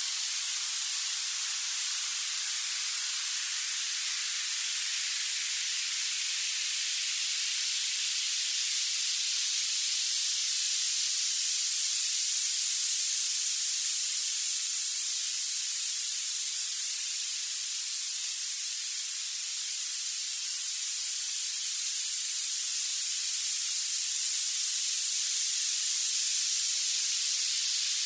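Violet noise: a steady, even hiss weighted toward the highest pitches, with no low end at all.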